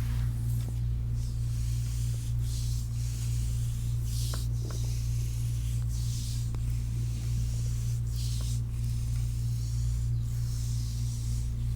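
Massaging hands stroking the skin of a foot in a slow rhythm, each stroke a soft swish about every two seconds, with a few faint small clicks. A steady low electrical hum sits underneath throughout.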